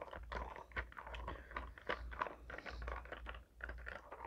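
Plastic straw stirring a cold matcha milk drink in a clear plastic cup: a continuous run of quick, irregular clicks and rattles, close to the microphone.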